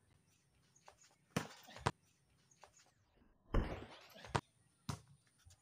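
A volleyball being hit back and forth by hand: about five sharp slaps of palms and forearms on the ball, the loudest about halfway through as players go up at the net.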